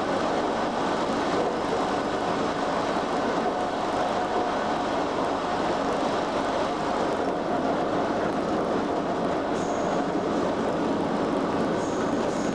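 Inside the cab of a British Rail Class 87 electric locomotive running at speed: steady running noise of wheels on rail and the loco's equipment, with a faint steady tone for a few seconds in the middle.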